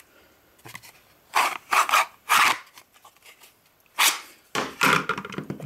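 Hard Kydex plastic holsters being handled and set down on a workbench: a series of short clacks and scrapes with quiet gaps between.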